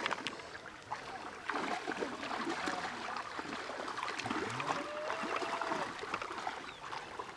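Water sloshing and splashing as people wade through shallow floodwater and drag a fine-mesh fishing net through it, in a rough, irregular stream of small splashes. A drawn-out pitched call rises and falls around the middle.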